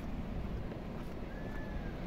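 Wind buffeting the microphone, a steady low rumble, with a faint short high tone about a second and a half in.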